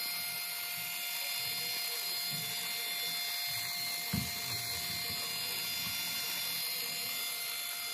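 Two small DC motors whirring steadily as they spin the popsicle-stick rotors of a plastic-bottle model Chinook helicopter. A light knock comes about four seconds in.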